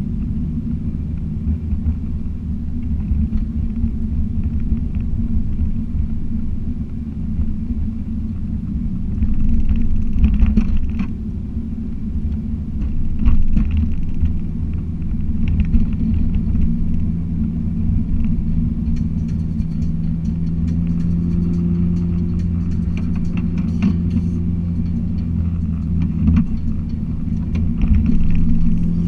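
A car driving, heard from inside the cabin: a steady low engine and road rumble with a constant engine hum. There are brief swells in loudness about ten and thirteen seconds in.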